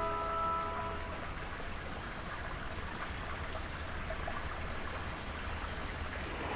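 Steady rushing of flowing stream water. A few held musical notes die away about a second in.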